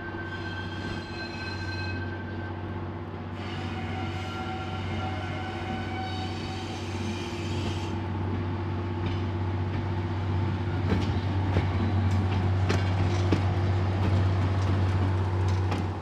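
Vintage diesel railmotor approaching on a curve, its engine droning steadily and growing louder. High thin wheel squeals come and go in the first half, and the wheels click over the rail joints more and more as it draws close.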